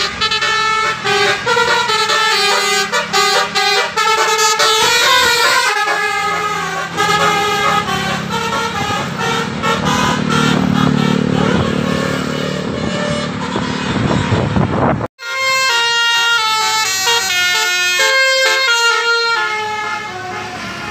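Bus telolet horns: multi-tone air horns playing quick stepwise melodies, with a bus engine growing louder in the middle as it comes past. The sound cuts out for an instant about three quarters of the way through, then the horn tunes start again.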